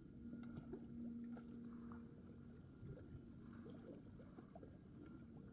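Faint low drone of a distant boat engine, stronger in the first two seconds and then fading, over a quiet seaside background. A few small clicks come from hands handling fishing line and hook.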